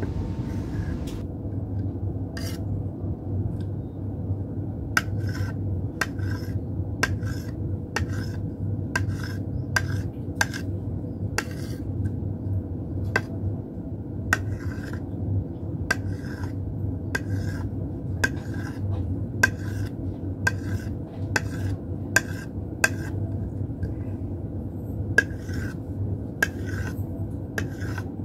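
Small kitchen knife cutting through set gulaman jelly and tapping down on the cutting board: a sharp click about once or twice a second, with a brief pause about three quarters of the way through. A steady low hum runs underneath.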